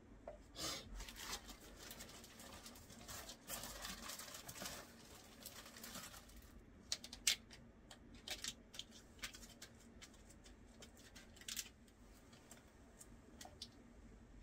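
Hands laying and smoothing adhesive deck tape onto a plastic Penny board deck: rustling and rubbing for the first several seconds, then scattered light clicks and taps.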